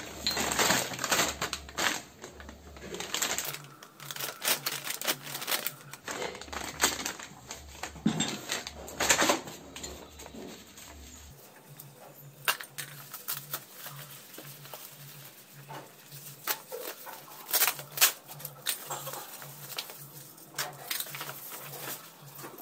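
Plastic packaging crinkling and rustling as a packet is handled. About halfway through it gives way to quieter scattered clicks and rustles as foam wrapping and a small cardboard box are unpacked.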